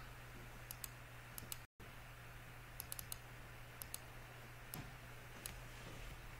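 Scattered computer mouse clicks and keyboard key presses, including a quick run of clicks about three seconds in, over a steady low hum. The audio drops out briefly about one and a half seconds in.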